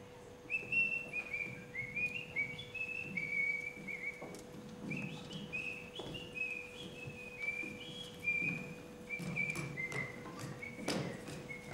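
A person whistling a lively folk melody, a single clear line of short notes that step and slide up and down. Underneath are soft footfalls on the stage floor, and a heavy thud comes near the end.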